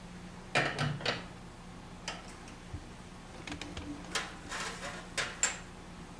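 Metal clinks and clacks of a Pesado portafilter being handled and locked into an espresso machine's group head, with shot glasses set down on the drip tray. The knocks come in a cluster about half a second in, then singly, then in a quicker run near the end, over a low steady hum.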